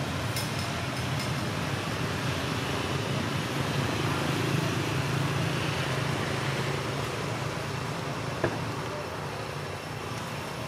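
Steady outdoor background rumble and hiss, like distant road traffic, with one sharp click about eight and a half seconds in.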